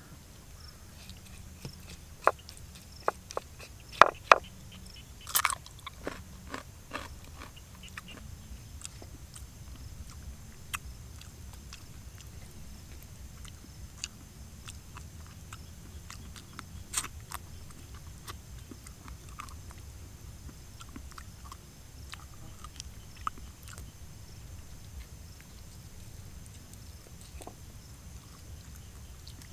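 Eating grilled fish by hand: chewing, with sharp crunches and crackles as the fish is picked apart. The crackles come thick in the first few seconds, with one loud crack about halfway, over a steady low background noise.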